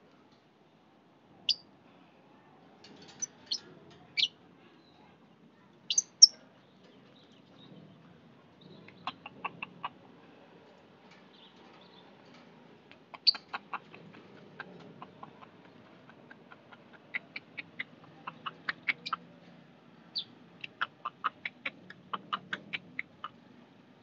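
Lovebirds calling with sharp, high, short chirps: a few scattered calls at first, then quick runs of several chirps a second from about nine seconds in.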